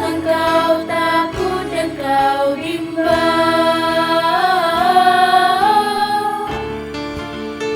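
School choir singing, with one long held note through the middle of the phrase that cuts off about two-thirds of the way in.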